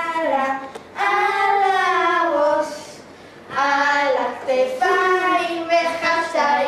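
Girls singing a song without accompaniment, in drawn-out sung phrases broken by a short pause about a second in and a longer one around the middle.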